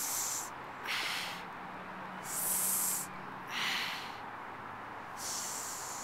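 Breathless, wheezing laughter from a teenage boy: five hissing, snorting breaths about a second or so apart, with no voiced laugh.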